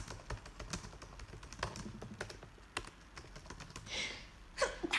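Irregular light clicks and taps, with a short breathy sound, like a sharp inhale, about four seconds in.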